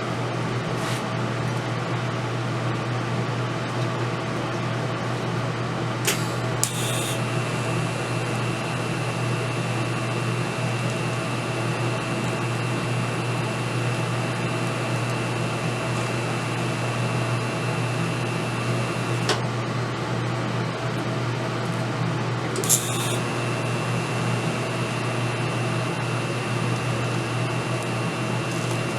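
TIG welder humming steadily; about six seconds in the arc is struck with a sharp crackle and burns with a steady high whine until it cuts off suddenly near 19 seconds, then it is struck again near 23 seconds and keeps burning.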